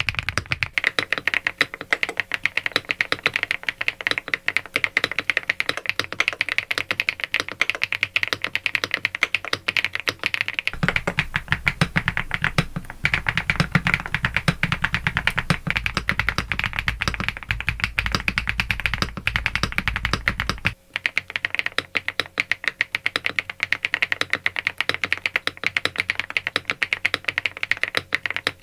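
Fast, continuous typing on an SPM Joyakdol 75 mechanical keyboard, a dense stream of key clacks. About a third of the way in the sound changes abruptly to a deeper, bassier typing sound, then switches back about two-thirds through.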